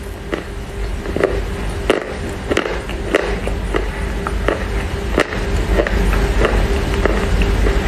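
Close-up chewing of wet Chinese loess clay: irregular crisp crunches and cracks, several a second at times, over a steady low hum.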